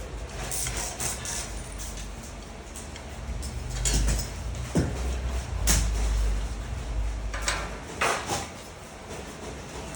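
Metal microwave-stand parts being handled during assembly: several knocks and scrapes, the clearest a little under halfway through and again a couple of seconds later, over a low handling rumble.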